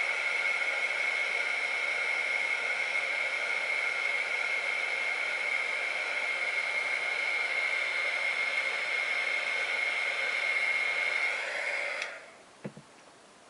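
Handheld hot-air dryer blowing steadily with a high whine, drying wet paint. About twelve seconds in it is switched off and winds down, and a single soft knock follows.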